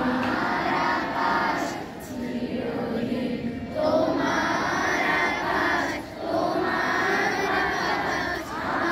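A large group of schoolgirls singing together in unison, in long phrases with short breaks for breath between them.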